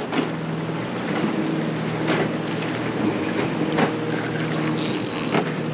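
Wind buffeting the microphone and choppy water lapping against a kayak hull, over a steady low hum, with a short high hiss near the end.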